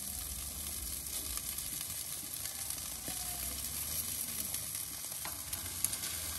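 Sauce-basted jerk chicken sizzling on a wire grill over hot charcoal, a steady hiss with small scattered crackles.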